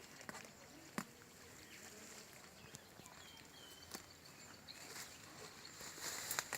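Faint outdoor ambience with a low hiss, a few short high bird chirps and a handful of sharp clicks.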